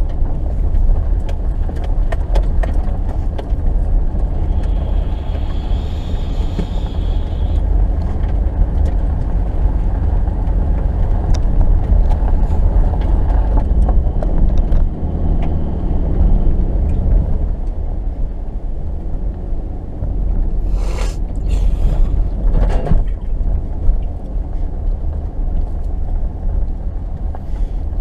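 A 2018 Subaru Forester driving slowly over snow-covered dirt and gravel tracks, heard from inside the cabin: a steady low rumble of tyre, road and engine noise. A few sharp knocks come about 21 to 23 seconds in.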